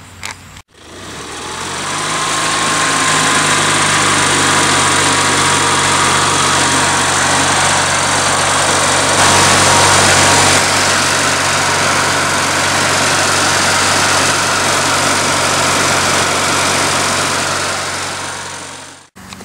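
Kohler Magnum 18 hp two-cylinder vertical-shaft engine running steadily, with a thin whine that rises over the first couple of seconds and then holds. The engine is running with its freshly cleaned stator so its battery charging can be tested.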